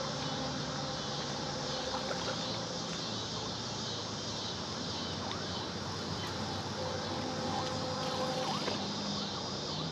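Steady outdoor background: a low drone of distant traffic with summer insects buzzing high above it.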